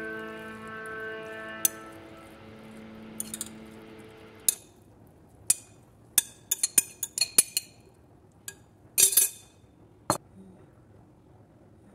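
Background music that stops about four seconds in, then scattered sharp clinks and taps, a quick run of them in the middle and the loudest near the end: a glass mixing bowl knocking against a ceramic plate as carrot salad is tipped out onto it.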